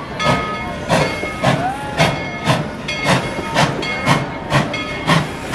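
Steam locomotive working under way, its exhaust chuffing steadily about twice a second over a continuous steam hiss, with faint thin squeals above it.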